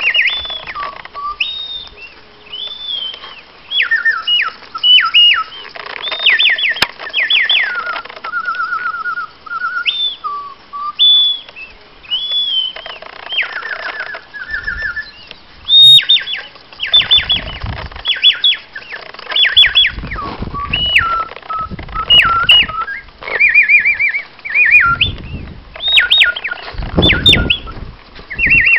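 Mechanical singing-bird automaton whistling bird song, driven by bellows in the box beneath the model bird. The song comes in repeated phrases of quick rising and falling whistles and short trills. Low rushing noises come and go over the second half.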